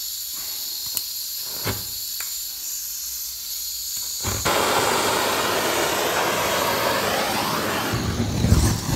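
Hand-held gas torch on a gas cartridge: gas hisses from the nozzle with a few clicks as it is lit, then about four seconds in the flame catches and burns with a steady rush. Near the end it flares up into a big, louder flame.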